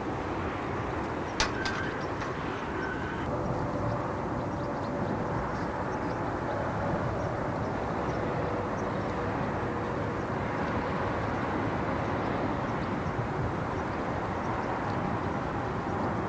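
Jet airliner engines running, a steady rush of noise with a faint hum through the middle, and a couple of sharp clicks about a second and a half in.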